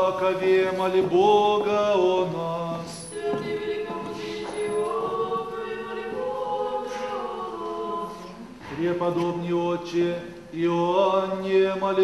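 Church choir singing Orthodox liturgical chant unaccompanied: several voices holding long chords that move from note to note, in phrases with brief breaks between them.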